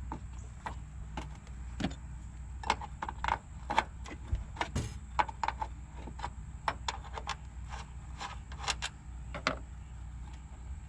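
Hand wrench working on the strut's top mount nuts: irregular metallic clicks and clinks, one or several a second, over a steady low hum.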